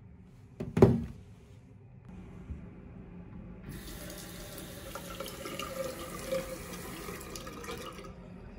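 A sharp thump a little under a second in. Then a bathroom sink tap runs, water pouring into the basin for about four seconds, until it is turned off shortly before the end.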